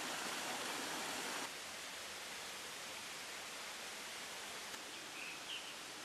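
Steady rushing hiss of a small waterfall cascading over rock, louder for about the first second and a half, then dropping to a softer rush. A few brief high bird chirps come near the end.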